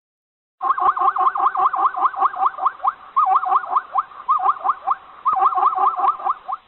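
An animal calling in a fast series of short chirps that rise and fall in pitch, about four or five a second, in several runs with brief breaks.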